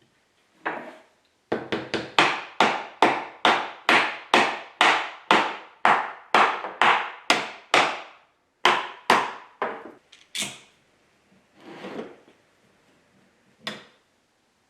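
Hammer blows on wood, a quick even run of about twenty strikes at two or three a second, then a few single knocks: wooden tail-vise parts and pegs being driven together during glue-up.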